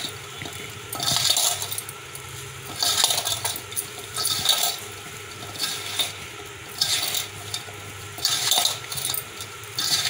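Hands tossing and squeezing cut barhar pieces with raw spice masala and mustard oil in a stainless-steel bowl, in repeated bursts about every second and a half. The fruit pieces rattle against the steel and glass bangles on the wrists clink.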